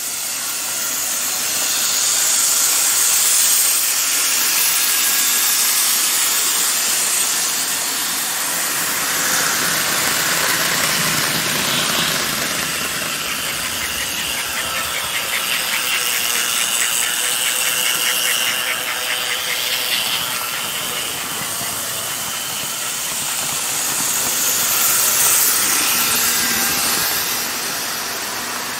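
Several Gilbert HO-scale model locomotives running at once, their small electric motors and gearing whirring as the wheels roll along the track. A fast rhythmic clicking comes through in the middle.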